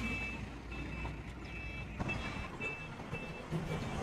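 Truck reversing beeper sounding in short, even beeps about twice a second over a diesel engine running, the sign that reverse gear is engaged.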